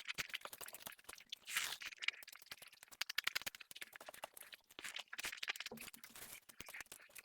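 Close-miked eating: chewing and crunching, a dense run of small clicks and crackles with uneven flurries.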